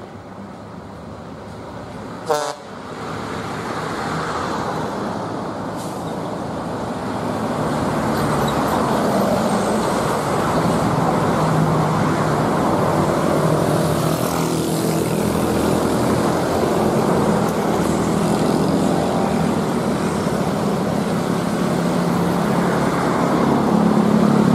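A large bus's diesel engine and exhaust running and getting steadily louder as it comes closer, with a low, steady engine drone. A single sharp knock about two seconds in.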